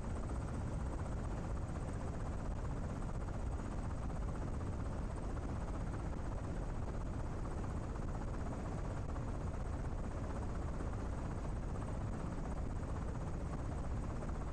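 Steady helicopter noise heard from aboard the aircraft, a dense low rumble with a faint thin high whine above it.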